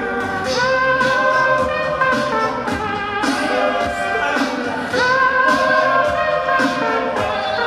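Music with singing: sustained sung notes held about a second each over a steady drum beat.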